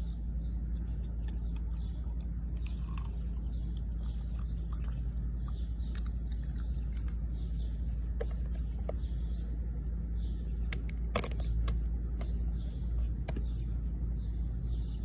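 A steady low rumble with scattered faint clicks and ticks.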